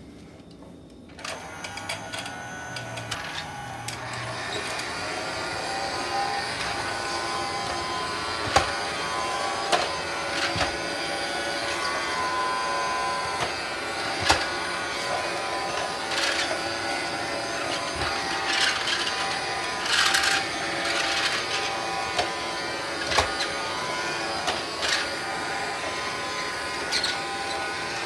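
Dyson toy vacuum cleaner's small battery motor whirring as it is pushed across a rug. It starts about a second in, rises in pitch over the next few seconds, then runs steadily, with occasional clicks and knocks from the plastic toy.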